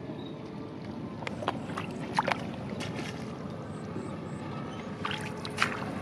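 Shallow muddy ditch water splashing as hands grope in it for catfish. A few short, sharp splashes (about a second and a half in, twice just after two seconds, and twice around five seconds) sound over a steady outdoor hiss.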